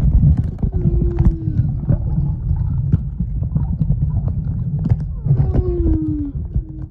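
Humpback whale calling: two short moans about a second long, each sliding down in pitch, one near the start and one near the end. Under them runs a loud low rumble, with scattered sharp clicks.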